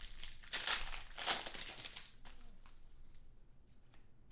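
A foil trading-card pack wrapper crinkling and tearing as it is opened, in a few loud rustling bursts during the first two seconds, then fainter rustling as the cards are handled.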